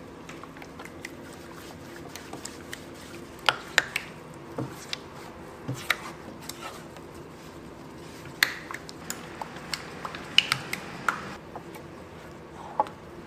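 A spatula stirring a thick creamy sauce in a stainless steel pan: wet squelching with scattered sharp clicks and scrapes against the metal, the loudest a few seconds apart, over a faint steady hum.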